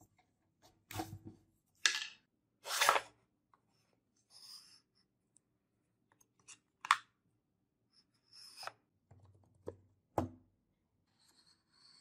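Small wooden box with a sliding lid being handled: a few short wooden scrapes early on, then scattered light clicks and dull knocks of wood and a small steel part.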